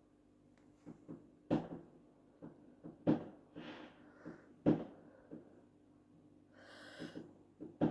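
Fireworks going off outside, heard from indoors: irregular muffled bangs, the three loudest about a second and a half apart, with softer pops and brief fizzing crackles between.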